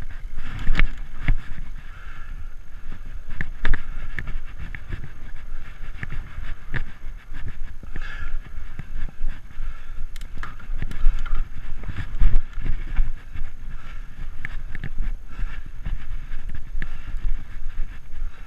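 Framed Alaskan fat-tire mountain bike rolling over a dirt singletrack trail. Its tyres rumble steadily, and the bike knocks and rattles often as it bumps along.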